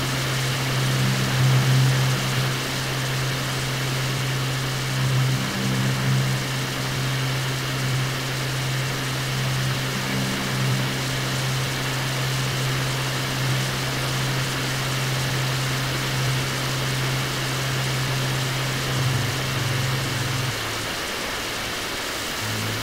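Ambient guitar drone: a sustained low note held under a steady wash of hiss-like noise, the low note shifting down and back up near the end.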